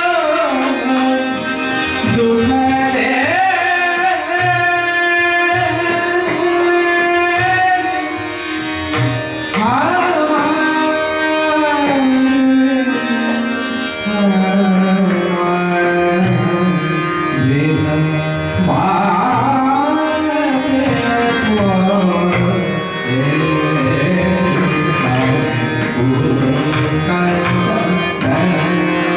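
Tabla accompanying a Hindustani classical melody: a lead line slides and curves between notes over a steady drone, with tabla strokes beneath.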